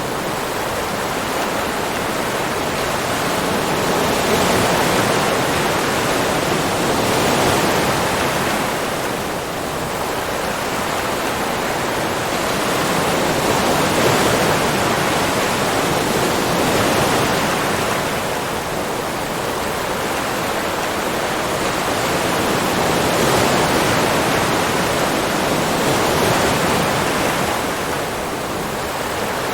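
Ocean surf: a continuous wash of breaking waves that swells and eases every few seconds.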